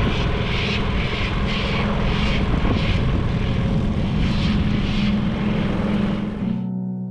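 An engine running steadily under a hiss that pulses about three times a second. It cuts off suddenly near the end.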